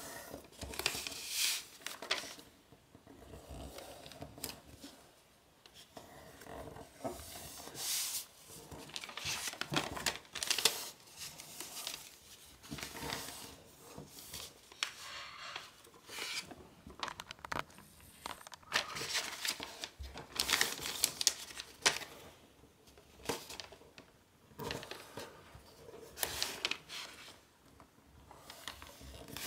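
A sheet of origami paper being folded and creased by hand: irregular crinkling rustles as the paper is bent over and fingers press and slide along the folds, coming every second or two with short quiet gaps between.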